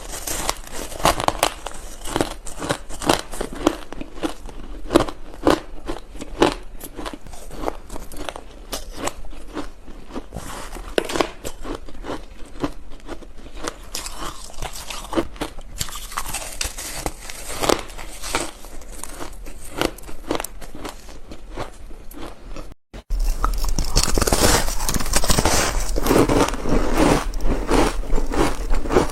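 Close-up crunching and chewing of frozen ice chunks coated with powdered milk and matcha, a run of sharp, irregular crunches. About 23 seconds in, the sound drops out for a moment, then comes back as a louder, denser crunching noise.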